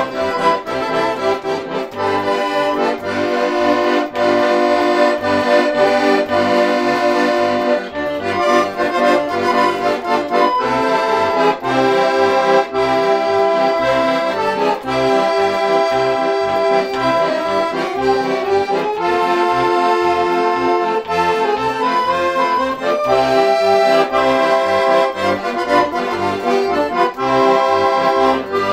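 Two piano accordions playing a polka duet: a melody in held chords over a steady, even bass beat.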